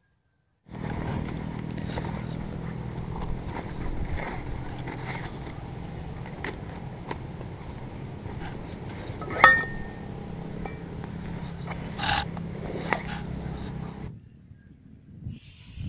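Camping gear being handled: the rattle and rustle of a folding camp table and a small gear bag, with a sharp metallic clink about nine seconds in, over a steady low hum that cuts off abruptly near the end.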